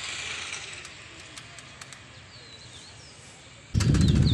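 Quiet open-air ambience with a soft hiss and a few faint bird chirps. Near the end, a sudden loud low rumble starts: wind buffeting the microphone.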